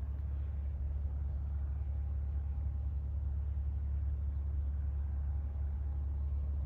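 Distant ship engines: a steady low rumble, with a faint thin tone in the middle for a few seconds.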